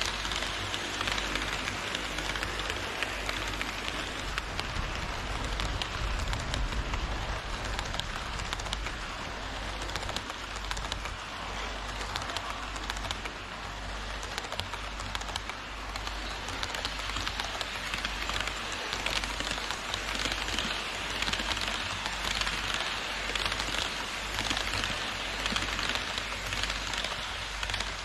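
HO scale model train rolling along KATO Unitrack on an elevated viaduct: a steady, dense rattle of many fine clicks, like light rain, from the wheels on the rails and rail joints.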